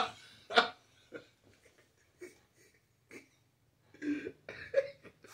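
A man laughing hard, mostly as wheezing breaths and short gasps with long gaps between them, then a few short voiced laugh bursts near the end.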